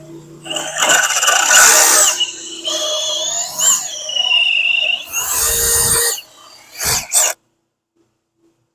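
Power tool running in four bursts with a high whine that bends in pitch, as when a fastener is driven or a hole is drilled into the deck framing; the sound cuts off suddenly a little after seven seconds in.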